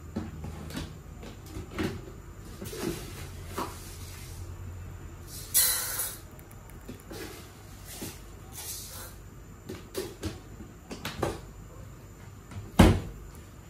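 Kitchen handling clicks and knocks, and about five and a half seconds in a short rattling hiss of dry rice poured from a cup into a ceramic-lined pot. A single sharp knock near the end is the loudest sound.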